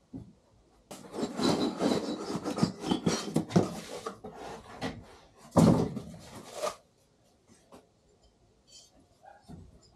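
Packaging being rummaged through and pulled apart while engine parts are unboxed: dense rustling and scraping starting about a second in, with a louder burst near the middle. It stops at about seven seconds, leaving a few light clicks and taps.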